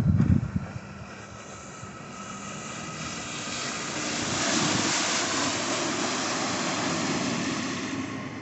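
Taiga Orca Carbon electric personal watercraft passing close at speed: a rushing hiss of jet spray over a faint steady whine from its electric drive, rising as it approaches and loudest about halfway through, then easing slightly near the end as it turns away. A few low thumps at the very start.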